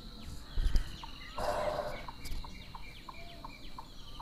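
Birds calling in the background: a string of short falling chirps over a faint steady high whine. A dull thump comes a little over half a second in, and a short rushing noise follows about a second later.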